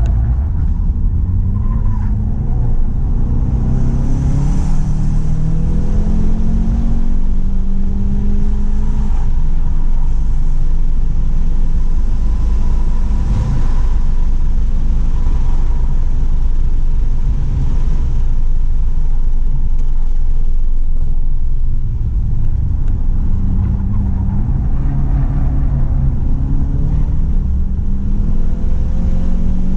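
2017 Volkswagen GTI's turbocharged four-cylinder engine under hard acceleration on track, its pitch climbing and dropping back several times as the DSG gearbox upshifts, over heavy road and wind rumble.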